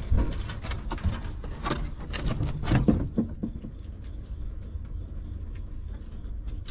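A dog moving right by the microphone: a quick run of clicks and rustles with a few low thumps for about three seconds, then quieter steady background noise with occasional light ticks.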